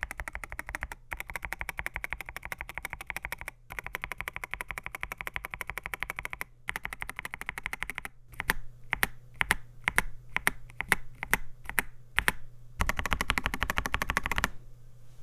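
AKKO MU02 mechanical keyboard with AKKO Rosewood switches, FR4 plate, PBT keycaps and walnut wooden case being typed on: fast continuous typing in several runs, then about four seconds of slower, louder single keystrokes at roughly four a second, then a short burst of rapid typing that stops shortly before the end.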